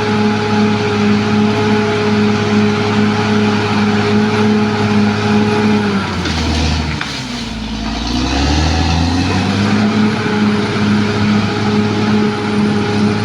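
Caterpillar D6R XL bulldozer's diesel engine running hard and steady; about six seconds in its speed sags and drops low for a couple of seconds before picking back up to full speed.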